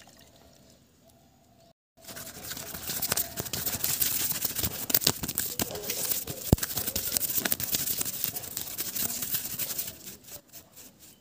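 A paintbrush scrubbing and dabbing white primer onto a crumpled, paper-covered surface: a dense scratchy rustle full of small clicks. It starts about two seconds in after near quiet and thins out near the end.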